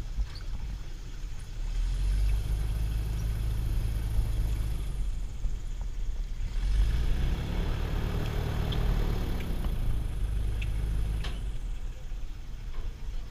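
Boat engine running with a steady low hum and a hiss of wind and water on top. It swells about two seconds in, eases off briefly around five to six seconds, then swells again.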